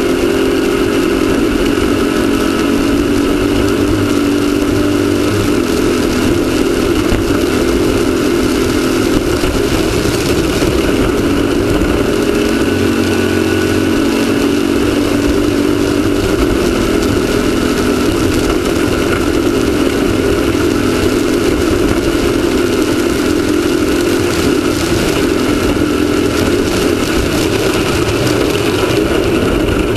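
Class 1600 off-road race car's air-cooled Volkswagen 1600 cc flat-four engine running hard at fairly steady revs, with continuous rushing noise from the car at speed.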